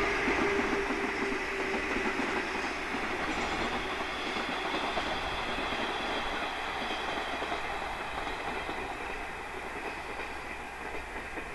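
Freight train hauled by an EF81 electric locomotive passing at speed, its wagons running over the rails. The noise slowly fades as the train draws away.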